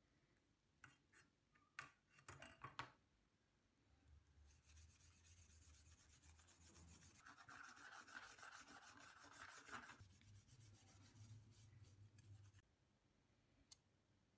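Old steel scissors being scrubbed by hand to clear the loosened rust after an electrolysis bath: a faint, steady scratchy rubbing for about eight seconds. It is preceded by a few light clicks as the scissors are handled.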